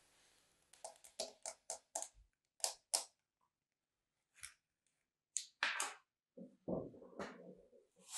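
Hands working kinetic sand in a plastic tray, pressing a plastic mould into it and then crumbling and squeezing the sand. It starts with a quick run of short, crisp scrunches, several a second, then a few scattered ones, then duller, denser crunching near the end.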